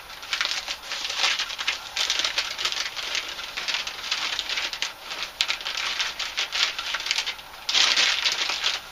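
Packing material crinkling and rustling as a parcel is unpacked by hand, in irregular bursts with a louder burst near the end.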